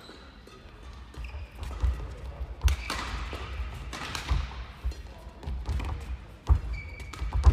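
Badminton rally: sharp racket hits on the shuttlecock a few seconds apart, the loudest about a third of the way in and another near the end, over players' feet thudding on the court mat.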